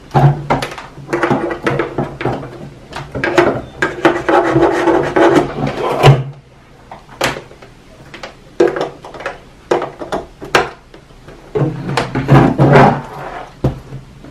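Handling noise of a plastic computer monitor and its cables on a desk: knocks, clicks and scraping as the monitor is tipped over and set back upright while an HDMI dongle is plugged in. It is busiest in the first six seconds, has only scattered clicks in the middle, and picks up again near the end.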